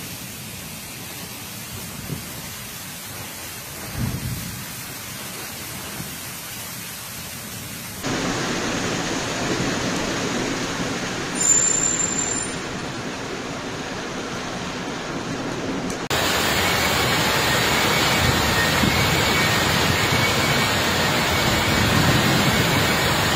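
Heavy thunderstorm rain and wind in three stretches that cut abruptly from one to the next, each louder than the last. There are two low thumps about two and four seconds in, and a brief loud surge about halfway through as a car ploughs a wave through flood water.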